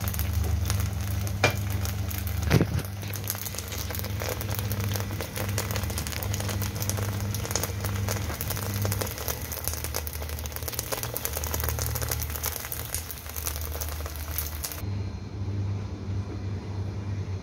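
Slices of Chinese New Year cake sizzling and crackling in hot oil in a wok, with a couple of sharper clicks near the start and a steady low hum underneath. The sizzling cuts off suddenly about fifteen seconds in, leaving only the hum.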